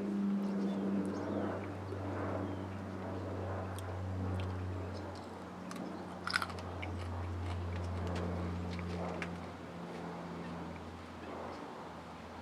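A person chewing raw, crunchy small hot peppers, with scattered small crunching clicks and one sharper click about halfway through. A steady low hum runs underneath.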